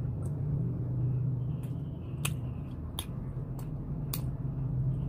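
A person chewing a mouthful of spaghetti, with about six sharp wet mouth clicks spread over a few seconds, over a steady low hum.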